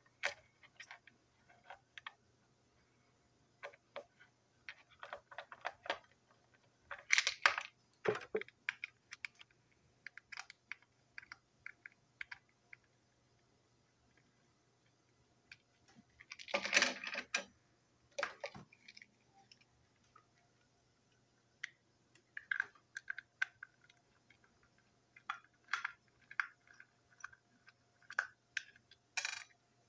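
Irregular small clicks, taps and scrapes of hard plastic parts of a TrackMaster toy train truck being handled and unscrewed with a small screwdriver. There are two louder clattering bursts, one about a quarter of the way in and another just past halfway.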